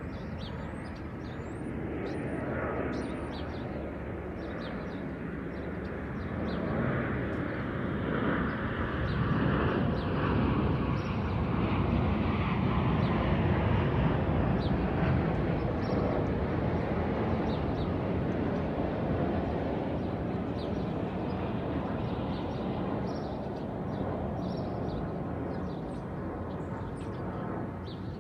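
An airplane passing overhead: a broad rumble that swells over several seconds, peaks about halfway through with a faint falling tone, then fades away. Birds chirp briefly near the start and now and then after.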